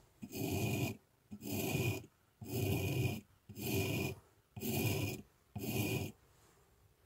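Steel chisel edge of a homemade bullet-casing chisel being honed on a flat sharpening stone: six raspy back-and-forth strokes, about one a second, each a little under a second long.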